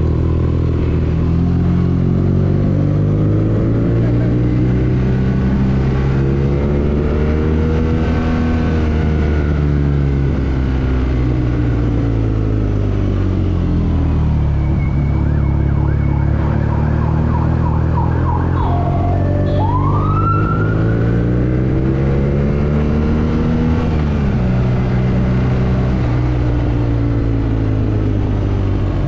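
BMW R nineT's air/oil-cooled boxer twin running under way in city traffic, its pitch rising and falling several times as the rider accelerates and eases off, with a sharp drop a little past two-thirds of the way in. A brief high warbling tone that ends in a rising glide sounds about two-thirds of the way in.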